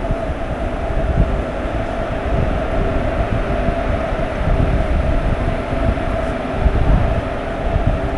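Kriya Yoga Express passenger train running along the line: a steady, loud rumble of wheels and carriages on the track with a steady hum over it.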